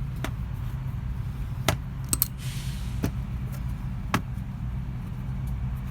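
Honda V6 engine idling with a steady low hum, with a handful of short sharp clicks over it.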